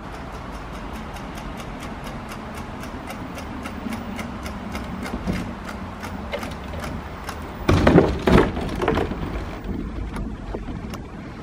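Electric scooter towing a kayak on a small two-wheeled cart rolls past, with a steady low rumble and a fast, even ticking. A louder clatter comes a little under eight seconds in, and the ticking fades out after it.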